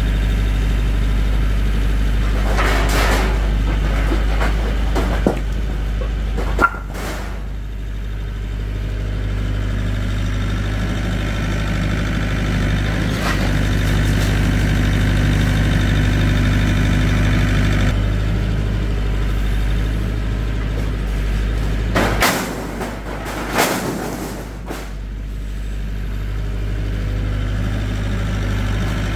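An engine idling steadily with a low hum, broken by a few short knocks and clatters, twice near the start and a group of them a little past two-thirds of the way through.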